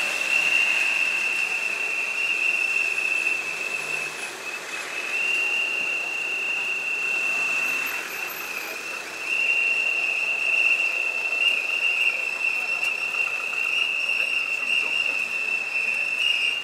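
Many protest whistles blown at once, merging into one steady high-pitched tone that barely breaks.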